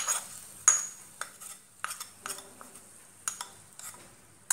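A metal spoon scraping and tapping fried onion tempering out of a small tempering pan into a bowl of batter: a string of irregular sharp clinks and scrapes, the loudest about a second in.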